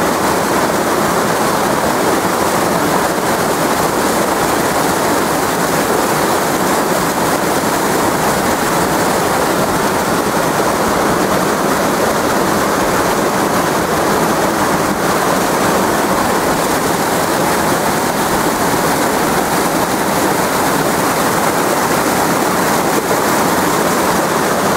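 Fast, shallow stream rushing over rocks in whitewater rapids: a loud, steady rush of water, close to the microphone.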